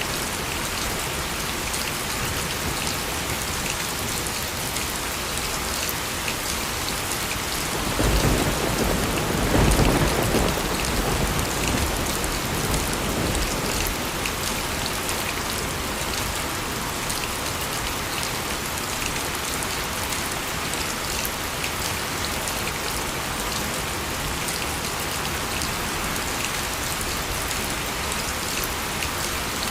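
Steady heavy rainfall with a roll of thunder about a third of the way in: a sudden low rumble that swells and then fades over several seconds back into the rain.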